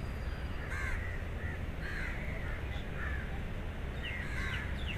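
Crows cawing repeatedly, a call every second or so, over a steady low background hum.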